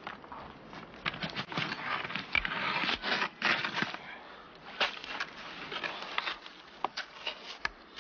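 Irregular crunching and scraping of snow as a fallen skier flounders and pushes himself up, with many short, sharp crunches.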